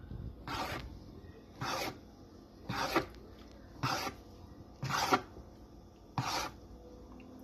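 Kitchen knife slicing raw chicken breast thin on a cutting board: six short strokes about a second apart.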